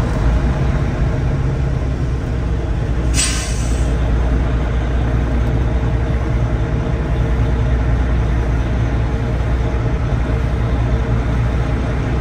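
A heavy diesel truck engine idles with a steady low rumble, heard from inside the cab. About three seconds in there is one short hiss of air brakes.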